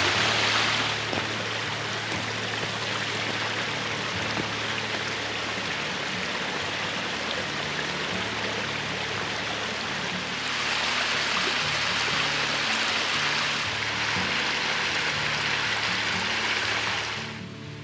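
Rushing stream water, a loud steady hiss whose level and tone change in steps a few times, then falls away just before the end. Soft background music with steady low notes sits underneath.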